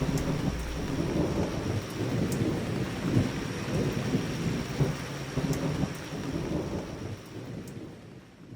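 Steady rain with thunder, fading away near the end.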